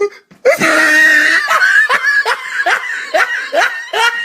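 A person laughing hard. It starts about half a second in with a long high cry, then breaks into a fast run of short falling 'ha' bursts, about three a second.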